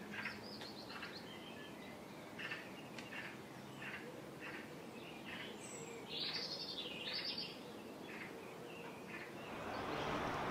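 Faint outdoor ambience with small birds chirping: a string of short, high chirps, with two louder calls about six and seven seconds in. A soft hiss rises near the end.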